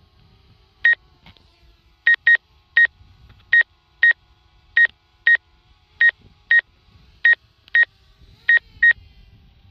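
A drone controller's short, high electronic warning beeps, about fourteen of them at an uneven pace, often in pairs, typical of the obstacle-proximity alert as the drone hovers close to stonework.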